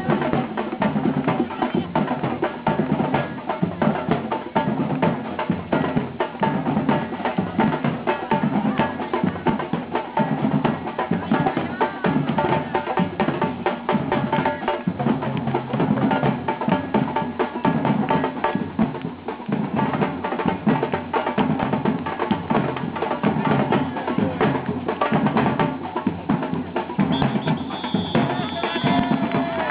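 Percussion-led music with drums and sharp wood-block-like clicks keeping a steady, even beat.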